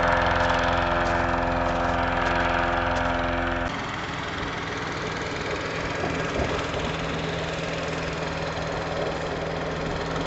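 Hovercraft engine and rear ducted propeller running steadily. About three and a half seconds in, the even engine tone gives way abruptly to a rougher, noisier rush with a lower steady hum.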